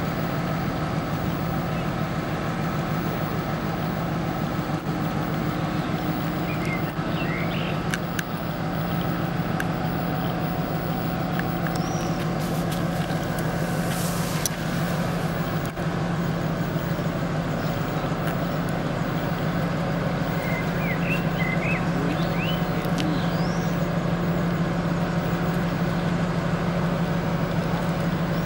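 An ST44 (Soviet M62) diesel locomotive's two-stroke V12 engine idling steadily while the locomotive stands at a signal. Birds chirp now and then, and there is a brief high hiss about halfway through.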